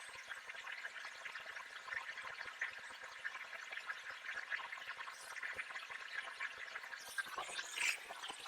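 Wet sandpaper rubbing over the fresh paint of a 1986 Chevrolet Monte Carlo during colour sanding: a steady scratchy swishing with water, with a louder, brighter hiss about seven seconds in.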